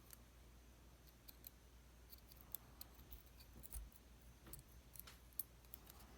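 Faint, scattered small metallic clicks and ticks from sliders being worked out of a Lockwood MT5+ lock plug, one after another.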